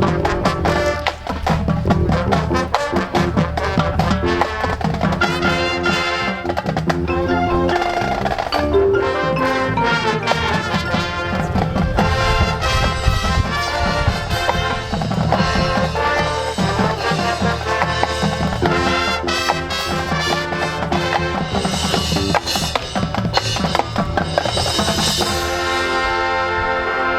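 High school marching band playing a field show: brass with marimba, xylophone and other mallet percussion over drums.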